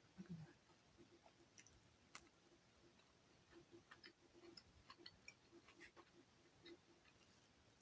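Near silence, with faint, scattered ticks and clicks.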